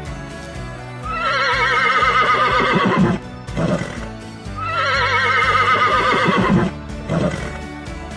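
Horse neighing twice, each a long quavering whinny of about two seconds, over steady background music.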